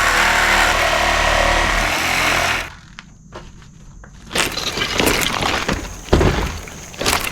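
Old cabin timbers being broken loose: a loud splintering, grinding noise for about three seconds, then scattered knocks and clatter of wood, with a heavy thud about six seconds in.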